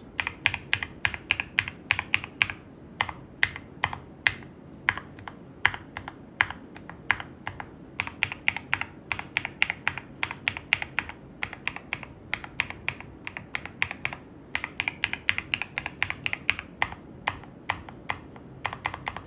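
Keystrokes on an Epomaker EK21 mechanical numpad fitted with Epomaker Wisteria linear switches, typed in quick irregular runs of clicks with short pauses between them.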